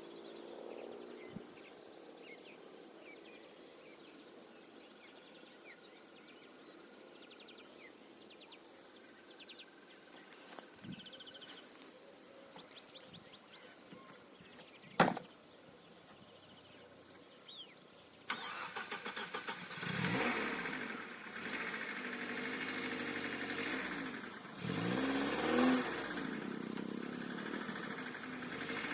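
A walk-behind tractor's engine starting about two-thirds of the way in and running, rising and falling in speed twice. Before it, faint chirps and one sharp click.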